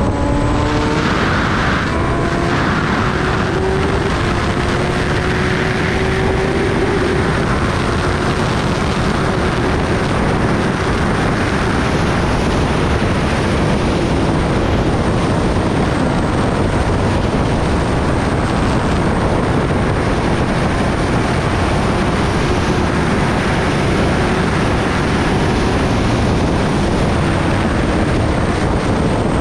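Kawasaki Ninja ZX-10R's inline-four engine accelerating, its note rising over the first several seconds, then heavy, steady wind rush on the microphone at highway speed with the engine running under it.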